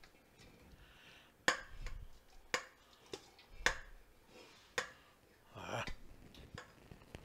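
Metal spoon clinking against a stainless steel bowl while browned meatballs are scraped out into a stainless steel stockpot: a series of sharp clinks about once a second, with duller thumps of meatballs landing in between.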